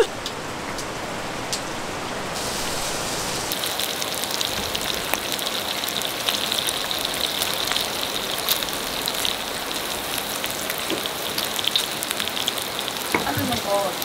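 A rushing mountain stream at first. From about three seconds in, pork belly sizzles and crackles with spitting fat on a hot griddle plate.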